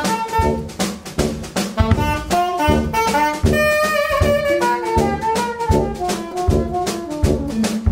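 Live jazz band playing: a tenor saxophone carries the melody over electric guitar, tuba and a drum kit keeping a steady beat.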